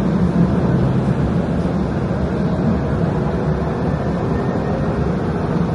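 Steady low rumble of a moving vehicle, even and unbroken, with a few faint steady tones above it.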